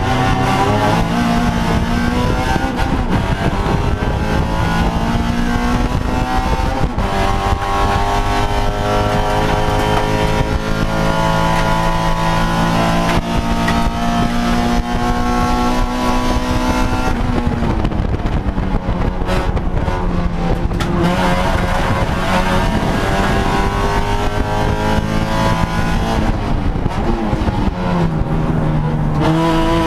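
Honda Civic Si touring race car's four-cylinder engine at racing speed, heard from inside the stripped cabin. Its pitch climbs repeatedly as it pulls through the gears, dropping when the driver lifts and shifts, with a longer easing-off about two-thirds of the way through before it climbs again.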